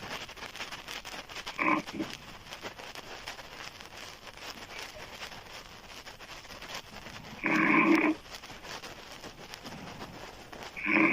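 A woman snoring loudly with her mouth open. There is a short snore about two seconds in, a longer one about two-thirds of the way through, and another at the very end, with quieter breathing noise between.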